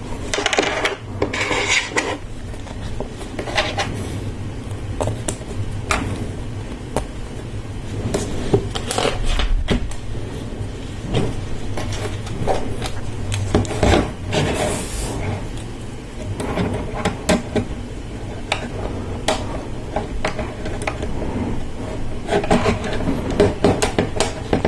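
Small plastic LEGO Technic parts being handled and fitted together: irregular clicks, taps and light rattling as pieces are picked up and pushed onto an axle.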